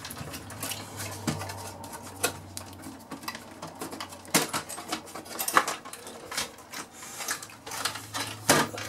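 The front panel and tape mechanism of a Sony cassette deck being unclipped and slid off its sheet-metal chassis: irregular clicks, knocks and scrapes of plastic and metal as the assembly is handled.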